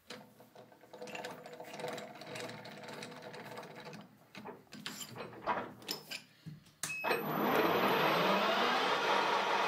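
Metal clicks and clinks as a steel blank is set into a lathe's three-jaw chuck and clamped. About seven seconds in, the lathe is switched on and runs steadily, its pitch rising a little as it spins up.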